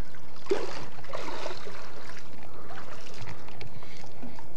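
Swimming pool water sloshing and splashing.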